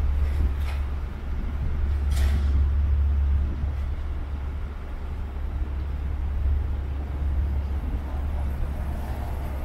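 Street traffic by a station, a steady low rumble, with a short sharp hiss about two seconds in and a fainter one just before it.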